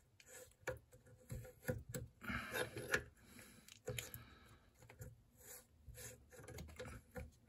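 Plastic coupling nut of a braided water supply hose being threaded by hand onto a chrome T-valve: faint, irregular clicks with rubbing and scraping of plastic on metal.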